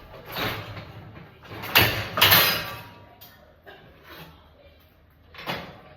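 Dishes and dishwasher racks being handled: a few clattering knocks and sliding scrapes. The loudest comes about two seconds in, and another sounds near the end.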